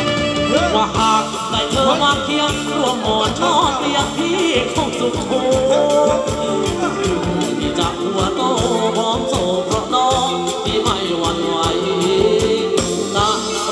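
Thai ramwong dance music from a live band, played loud with a steady beat.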